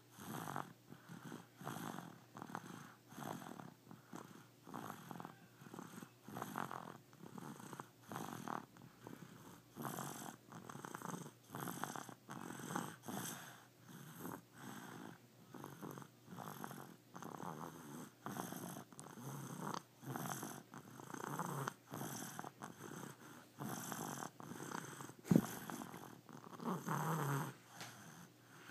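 Rhythmic snoring: a rasping breath about once a second, with one sharp knock about 25 seconds in.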